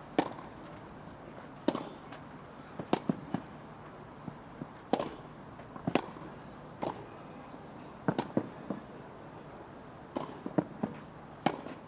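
Tennis rally on a grass court: racquets striking the ball back and forth, sharp separate hits about a second apart, with a few quieter knocks between them.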